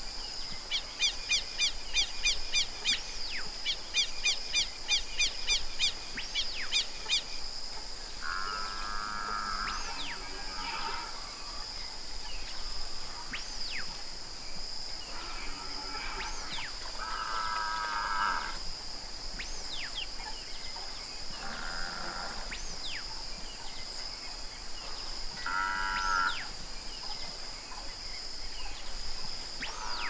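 Outdoor rural ambience: a steady high insect drone, with a quick series of repeated bird notes over roughly the first seven seconds. Several short animal calls of about a second each come every few seconds.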